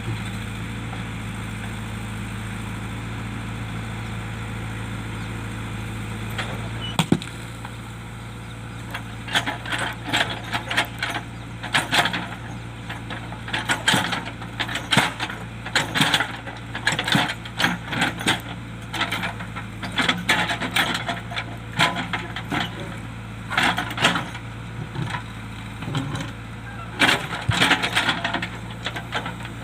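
A JCB backhoe loader's diesel engine runs steadily. About seven seconds in, a sharp knock starts a long run of irregular clanks and clatters as rocks and stones knock and scrape against the steel bucket, with the engine still running underneath.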